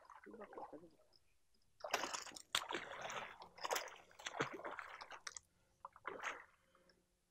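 Faint, irregular water splashing, ending about six seconds in with the splash of a peacock bass striking at the surface.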